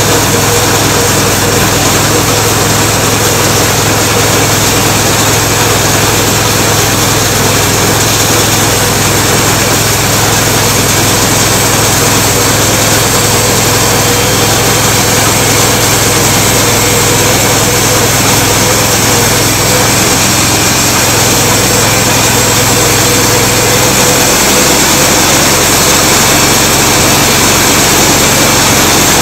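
Small engine running steadily as a homemade bandsaw mill's blade cuts a black walnut log, with a slight change in the engine's note near the end.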